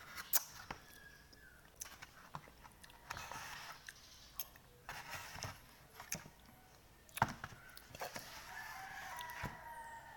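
A rooster crowing, with wavering pitched calls about a second in and again near the end. Sharp clicks of cutlery and eating are scattered through.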